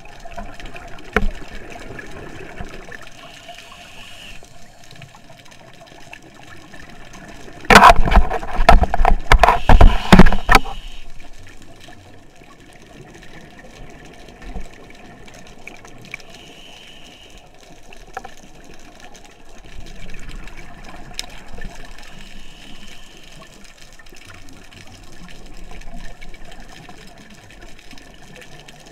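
Underwater sound picked up by a diver's camera: a low steady hiss with a faint hum. About eight seconds in comes a loud burst of bubbling that lasts about three seconds: a scuba diver exhaling through the regulator.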